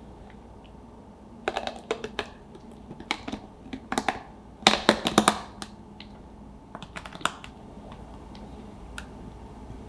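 Clusters of light clicks and taps, loudest about five seconds in: a mixing bowl knocking against the rim of a plastic container while a thick cream and yogurt mixture is poured out of it.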